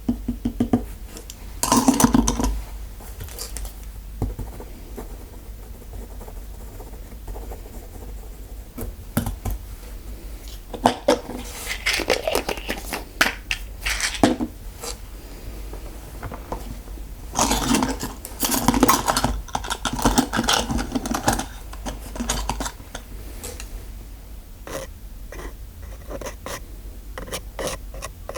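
Small metal dental-style instruments clicking and scraping close to the microphone in irregular clusters, over a steady low hum.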